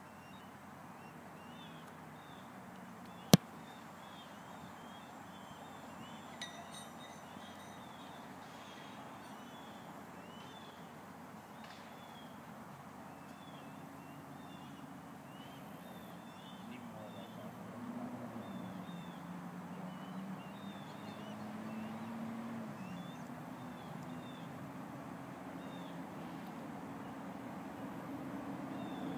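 A single sharp thud of a football being place-kicked, about three seconds in. Small birds chirp over and over throughout, and a low steady hum comes in about halfway through.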